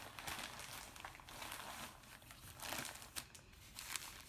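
Plastic-lined fabric shower cap crinkling and rustling in faint, irregular bursts as it is pulled over the hair and adjusted with the hands.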